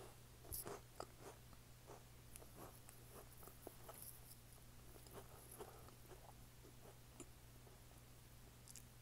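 Faint chewing of a crunchy snack close to the microphone: an irregular run of small crunches and clicks, two or three a second, over a low steady hum.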